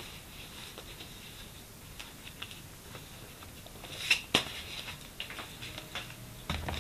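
Faint handling of paper notebooks on a tabletop: light rustles and small taps, two sharp clicks about four seconds in, and a soft thump near the end as a second notebook is slid in and laid down.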